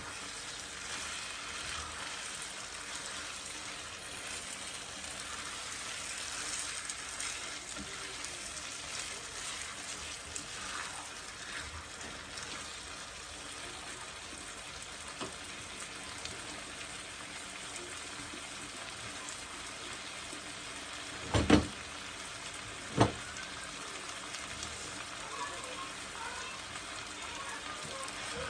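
Chicken and spice masala sizzling steadily as it is fried (bhuna) in a pot. Two sharp knocks stand out about two-thirds of the way through.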